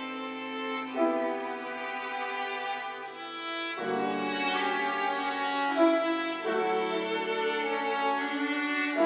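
Piano trio of violin, cello and piano playing a slow classical miniature: long bowed notes, with the harmony changing every two to three seconds.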